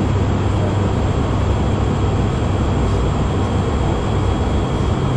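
Steady cockpit drone of an ATR 72-600 in flight, its Pratt & Whitney PW127M turboprops and the airflow, heard from the flight deck. A strong low hum sits under an even rush of noise, with a faint thin high whine above it.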